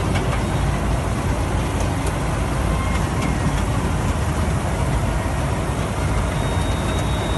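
Combine harvester for rice running steadily: a loud, even low engine rumble with the hiss of its working machinery above it.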